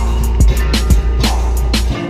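Lion dance percussion: a big drum and clashing cymbals beating out the rhythm, with cymbal crashes about twice a second over a heavy, steady drum rumble.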